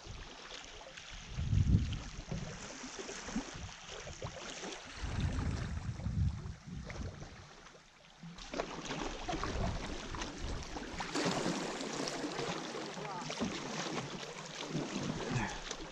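Canoe paddles dipping and pulling through river water, with water lapping along the hull. Two low rumbles come in the first half, and from about halfway a steadier rush of moving current takes over.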